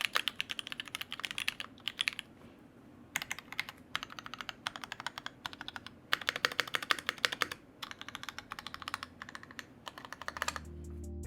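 Typing on a Loki65 custom mechanical keyboard: fast runs of key clicks in bursts, with short pauses between them. Music comes in near the end.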